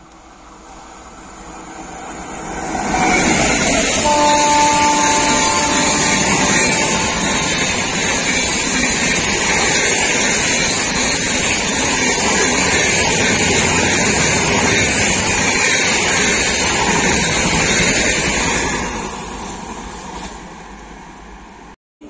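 Rajdhani Express, a WAP-7 electric locomotive and LHB coaches, running through at about 130 km/h. A rush builds as it approaches, then about fifteen seconds of loud, steady wheel-on-rail and wind noise, with a steady tone for about three seconds as the locomotive goes by. It fades as the last coaches pass and cuts off suddenly near the end.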